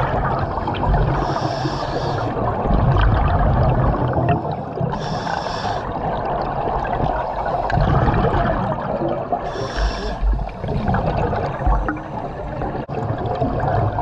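A diver breathing through a diving helmet underwater: a short hiss of air on each breath, about every four seconds, over a continuous rumble of water and bubbles.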